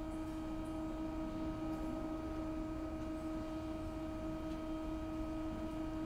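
A steady held hum: one constant tone with overtones over a low rumble.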